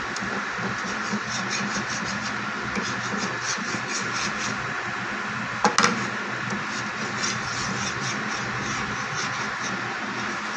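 Butter sizzling and crackling steadily as it melts and foams in a nonstick frying pan, with a wooden spatula spreading it across the pan. A short louder clatter comes a little past halfway.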